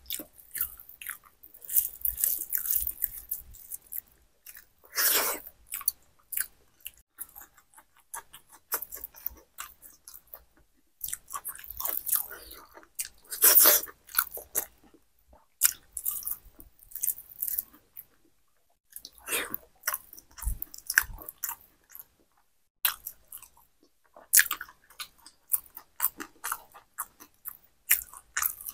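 A person eating khichuri by hand close to the microphone: wet chewing and mouth sounds in irregular clusters with short pauses, and crunching bites of fried vegetables.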